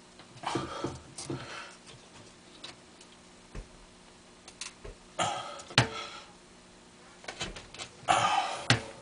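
Scattered short rustling noises and small sharp clicks and knocks, over a faint steady low hum.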